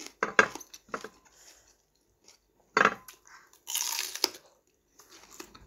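Close-up crunchy bites and chewing of a raw ampalaya (bitter gourd): a few sharp crunches, with a longer crunching stretch about four seconds in.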